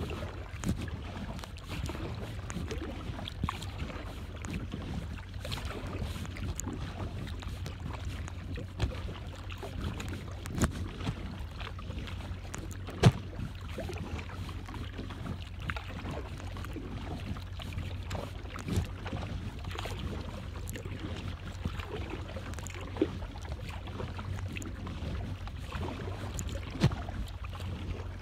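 Water lapping against the hull of a Lifetime plastic kayak, over a low steady rumble, with scattered sharp knocks every few seconds, the loudest about halfway through.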